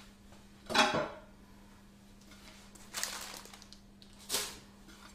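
Handling noises as a round cake board is fetched: a brief scrape about three seconds in and a short, sharp clack a second later. A short burst of voice comes about a second in.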